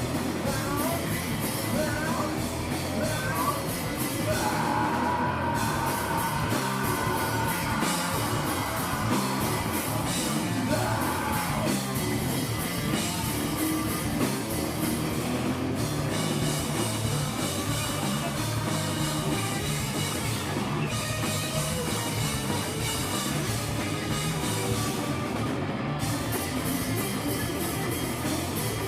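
Live rock band playing, with a singer shouting and singing over the full band.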